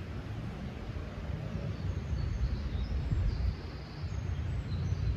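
Outdoor ambience: a steady low rumble, with faint high bird chirps starting about two seconds in.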